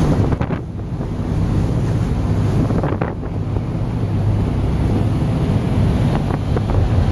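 Wind buffeting the microphone on the open deck of a moving whale-watching boat, over the steady low rumble of the boat's engine and the rush of its wake.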